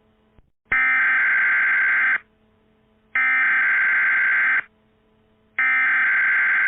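Emergency Alert System SAME header: three identical bursts of digital data tones, each about a second and a half long, with about a second of pause between them. These are the coded header that opens an EAS alert.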